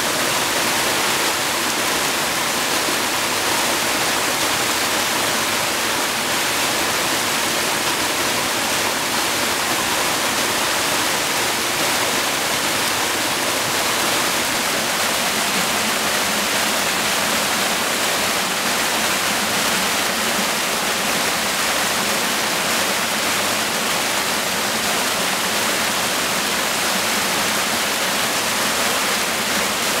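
Waterfall pouring steadily, an even rush of falling water.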